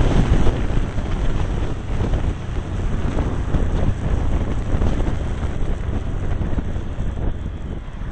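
Heavy wind noise buffeting the microphone over the low rumble of a Cagiva Navigator motorcycle riding along at road speed.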